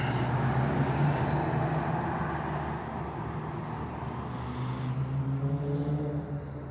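Passing motor vehicle: engine and tyre noise swelling early, again about five seconds in, then fading.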